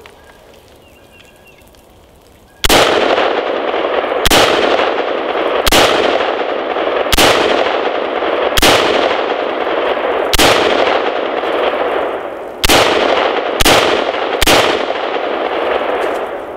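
Nine rifle shots from a Colt AR-15 firing .223 Remington, fired one at a time about one to two seconds apart and starting a few seconds in, each followed by a loud rushing noise that lingers until the next shot.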